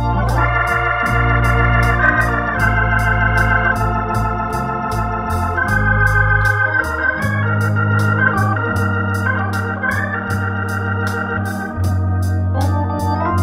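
Hammond T500 tonewheel organ playing a slow pop ballad: sustained chords and melody over held bass notes. A light, steady ticking beat runs about four times a second.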